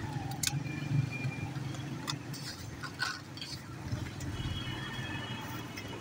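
Low street rumble with a few sharp clicks and clinks as a utensil works freshly fried potato chips around in a ceramic serving bowl. A high steady tone sounds for about a second and a half near the end.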